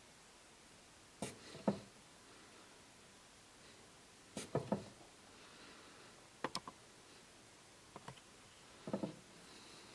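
A perfume bottle and its packaging being handled: about five short clusters of sharp taps and clicks, with quiet room tone between them.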